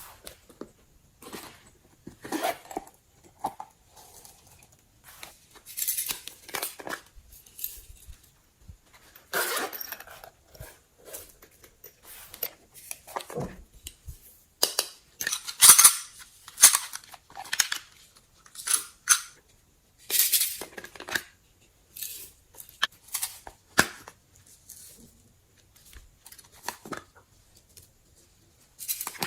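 Slime being squished and worked close up, making irregular crackling, popping squishes, with the loudest cluster in the middle.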